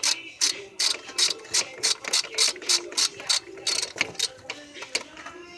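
Socket ratchet clicking as it is swung back and forth, tightening the ignition coil hold-down bolts on the engine. About three strokes a second, stopping about four seconds in.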